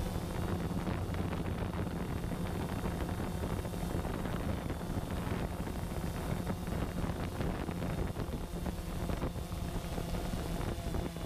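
Quadcopter drone's propellers humming steadily as it hovers low and descends toward grass to land, with wind buffeting the microphone.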